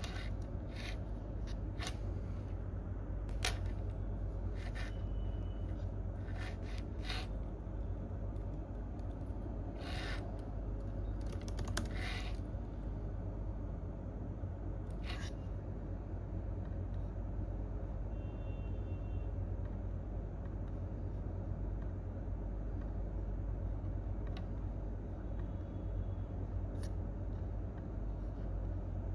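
Irregular computer keyboard and mouse clicks, single and in short bunches, thinning out after the first half, over a steady low office room hum.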